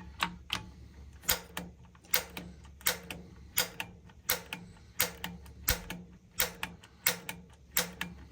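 Piezo spark igniter on a Rheem gas water heater clicking over and over, about one sharp click every 0.7 s and some of them doubled, as the button is pumped to light the pilot, which has not yet caught.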